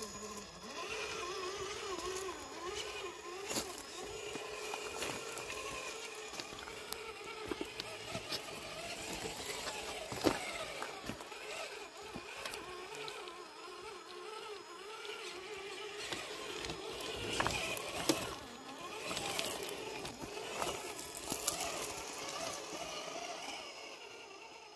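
Traxxas TRX-4 Ford Bronco RC crawler's electric motor and gears whining, the pitch wavering up and down as the throttle is worked. Scattered knocks and clacks come from the tires and chassis climbing over logs and rocks.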